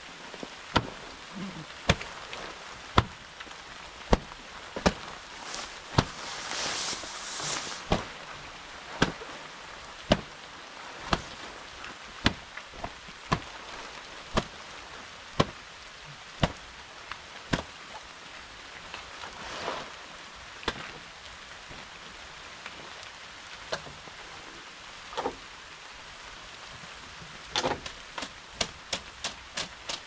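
Sharp chopping strokes, about one a second, over steady rain; a brushing swish comes about six seconds in, and the strokes come faster near the end.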